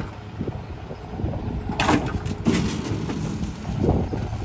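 Rear-loader garbage truck's engine idling with a steady low rumble, while bulky junk and wooden boards are tossed into its hopper with a few clattering knocks, two close together about two seconds in and another near the end.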